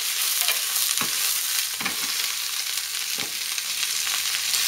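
Cabbage and onion sizzling in a frying pan over high heat while being stirred with chopsticks, with a few short knocks from the stirring.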